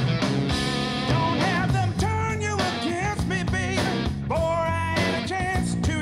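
Rock music with guitar played through a pair of Monitor Audio Bronze 100 bookshelf speakers and picked up by a microphone in the room.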